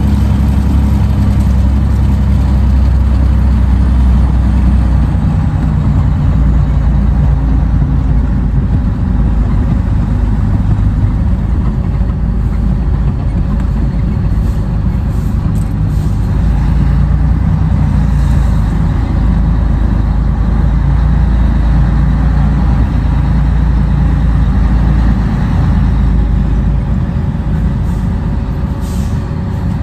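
Scania 113 truck's 11-litre six-cylinder diesel engine running under way, heard from inside the cab, its pitch stepping up and down as the gears are changed. A few short clicks come near the end.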